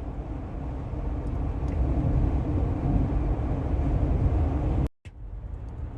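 Steady low rumble of a moving motor vehicle, growing slightly louder, then cut off abruptly about five seconds in and followed by a quieter rumble.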